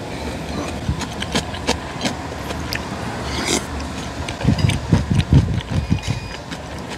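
Spoon and bowl clicks of eating. Then, from about four and a half seconds in, heavy nose breaths blast straight onto a clip-on microphone in a string of low, rumbling gusts, over a steady low hum.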